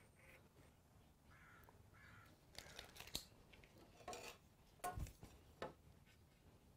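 Faint handling sounds of a metal combination square and pencil on a wooden board during layout: a few short scrapes and light clicks in the middle, the sharpest click about five seconds in, with near silence around them.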